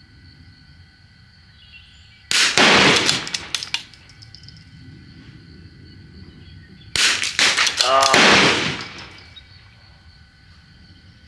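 Two .22 rimfire rifle shots from a CZ bolt-action, about four and a half seconds apart. Each sharp report is followed by about a second of echo across the range.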